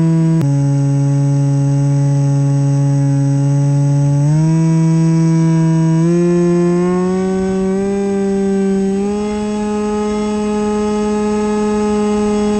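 Brushless RC plane motor (RS2205 2300kv) and propeller whining steadily. Its pitch steps with the throttle: down about half a second in, then up in three steps around 4, 6 and 9 seconds in. Heard through the plane's onboard camera microphone.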